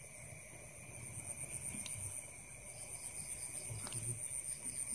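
Night insects chirping in a steady chorus: a high, rapidly pulsing trill over a lower steady buzz, with faint rustling and a couple of soft clicks.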